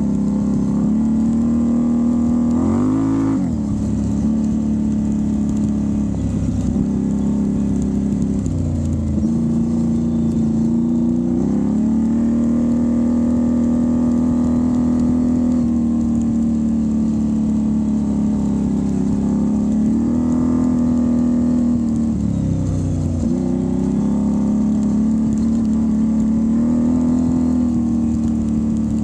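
Can-Am Renegade ATV's Rotax V-twin engine running under changing throttle. The revs climb sharply about three seconds in, then drop and pick up again several times as the throttle is let off and opened.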